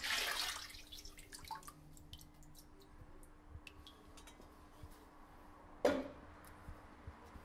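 Molten candle wax pouring from a metal jug into a steel vat, the stream tailing off within the first second. Scattered drips and small ticks follow, with one short splash about six seconds in, over a faint steady hum.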